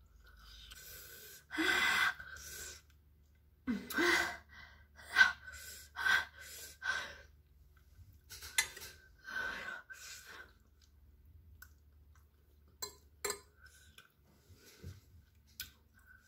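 A person breathing hard in and out through the mouth in a run of short, hissing breaths and gasps, a reaction to the burn of very spicy chilli noodles. A few sharp clicks near the end.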